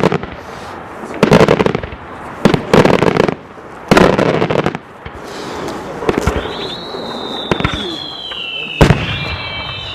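Daytime fireworks going off: a run of loud bangs and crackling volleys, then several shrill whistles that slowly fall in pitch and overlap, with one more sharp bang near the end.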